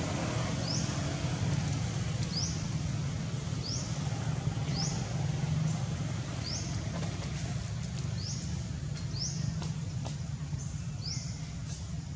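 A bird repeating a short, high, rising call roughly once a second, over a steady low rumble.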